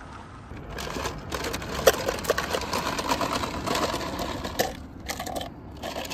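Clear drinking cups clattering and clinking as they are lifted out of a white plastic container and set on a wooden counter: a busy run of small clicks and rattles for about four seconds, then two shorter bursts near the end.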